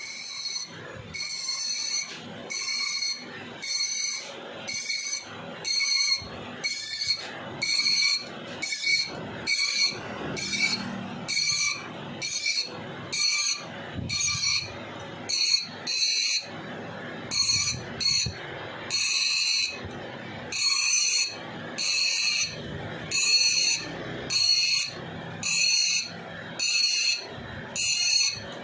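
A hand thread tap squeaking as it is turned into a stud hole in an aluminium cylinder head, cutting new threads. There is one short, high squeak about every second, one per stroke of the tap.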